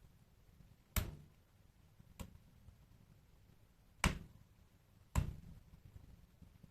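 Wood fire in a fireplace crackling: four sharp pops of burning wood over a faint low rumble.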